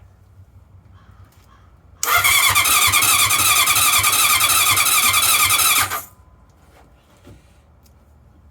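Old Harley-Davidson's electric starter cranking the engine for about four seconds, then cutting off abruptly. The engine spins over but does not fire.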